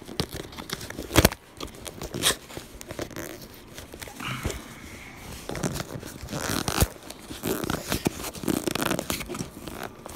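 Cardboard shipping box being cut and torn open: a blade scraping and ripping through packing tape and cardboard, with crinkling, scattered clicks of handling and one loud knock about a second in.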